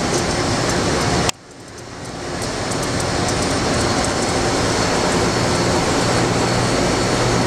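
EDM DrillMate 430I hole-popper burning a hole: a steady hiss and hum from its high-pressure pump driving dielectric fluid through the electrode, with faint crackling. It cuts out abruptly about a second in, then builds back up to a steady level.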